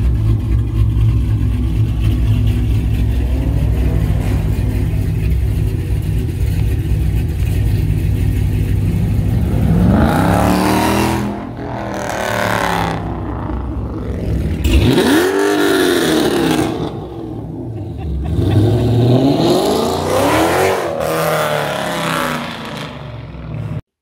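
A car engine idling with a steady low drone, then revved up and let fall back about three times in the second half.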